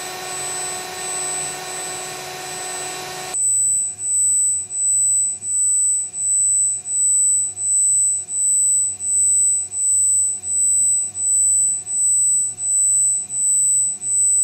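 Servo drive cabinet running with a steady fan-like rush and hum. A little over three seconds in this gives way abruptly to a Rexroth MSK servo motor under test on its drive: a steady high-pitched electrical whine that swells and dips in an even rhythm, about three pulses every two seconds.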